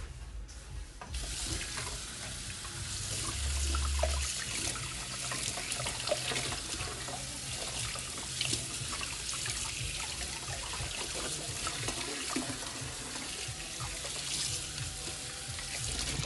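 Tap water running steadily into a sink, with small knocks and splashes. The water comes on about a second in and stops near the end.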